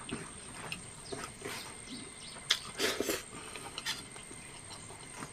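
A man eating rice by hand and chewing: scattered wet mouth smacks and clicks, with a few louder ones about halfway through.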